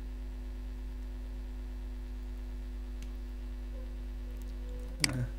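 Steady electrical mains hum under the recording, with a faint tick about three seconds in and one sharp click near the end.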